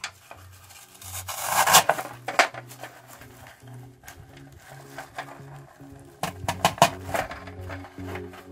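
Artificial greenery rustling and scraping against a metal tin as its stems are pushed in, in two bursts, about a second in and again about six seconds in, over quiet background music.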